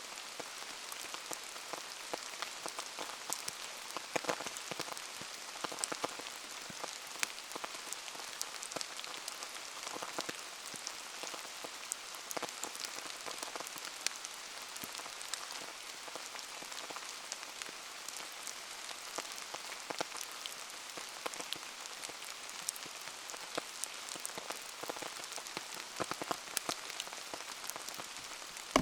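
Steady rain falling, an even hiss with many scattered sharp ticks of drops striking throughout.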